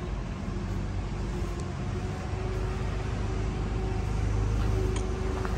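Steady low rumble of background shop noise, swelling slightly about four to five seconds in, with a few faint clicks.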